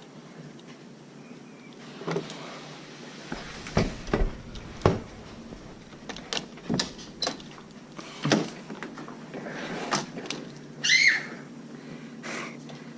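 Scattered sharp clicks and knocks from a Nerf foam-dart battle: blasters being primed and fired and darts striking things, about a dozen in all, a few of them loud. A brief high squeak comes near the end.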